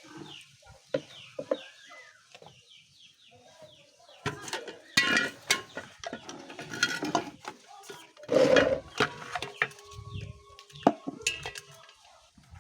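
Chickens calling: a quick run of short, falling high peeps in the first couple of seconds, then clucks mixed with knocks and handling noises.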